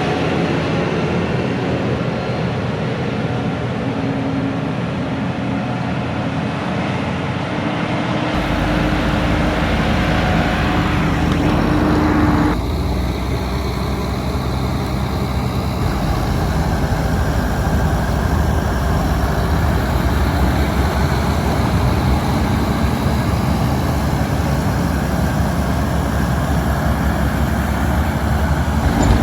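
Heavy diesel harvest machinery running steadily under load, with a low engine note over a constant mechanical rush. The sound changes abruptly about 8 seconds in and again about 12 seconds in.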